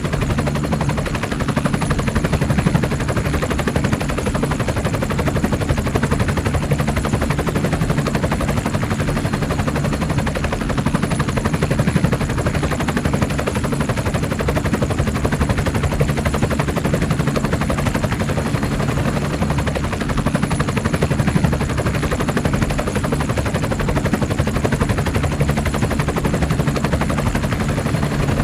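Mi-8 helicopter running steadily, its rotor blades making a fast, even chop over a low drone of the turbines, with a faint high whine on top.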